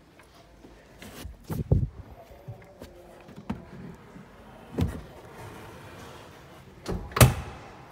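Carpeted boot floor panel of a 2019 SEAT Alhambra being lifted and handled: a series of knocks and thuds, a cluster about a second and a half in and the loudest thud near the end.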